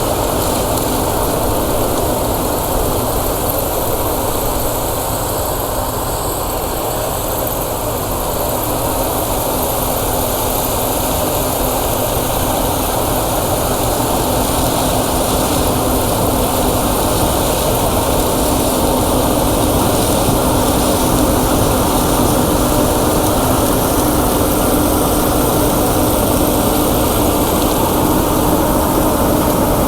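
Heavy farm machinery's diesel engine running steadily: a continuous drone, with a low hum that grows a little stronger in the second half.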